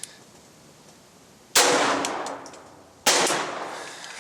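Two gunshots about a second and a half apart, each with a short echoing tail.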